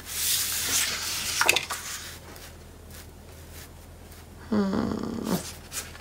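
Sheets of scrapbook paper sliding and rustling on a cutting mat, with a sharp tap about a second and a half in. Near the end comes a short pitched vocal sound lasting under a second.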